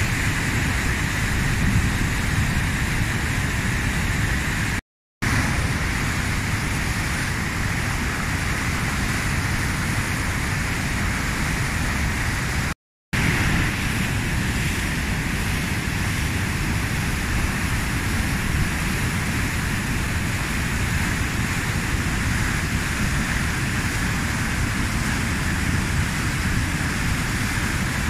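Floodwater rushing over a river weir and churning through the rapids below, a steady heavy roar. It cuts out completely twice, briefly, about five and thirteen seconds in.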